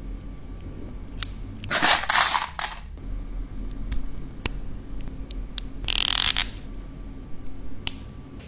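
Handling sounds of a leather watch strap being fitted with its metal hardware and attached to a smartwatch: scattered small metallic clicks and taps, with two short bursts of rustling, rubbing noise about two and six seconds in.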